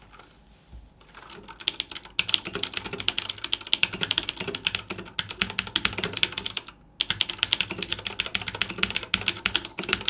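Fast typing on a Noir N1 65% mechanical keyboard with Gateron switches, a dense run of key clicks as a sound test. It starts about a second and a half in, breaks off briefly about two-thirds of the way through, then picks up again.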